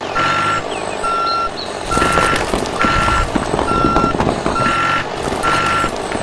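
Vehicle reversing alarm beeping, seven even single-pitched beeps a little under a second apart, over a steady noise.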